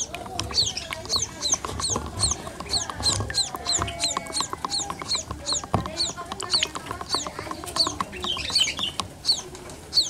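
Pipit chicks chirping over and over: short high calls that fall in pitch, about two a second. Light clicks from a stick stirring feed in a plastic cup run underneath.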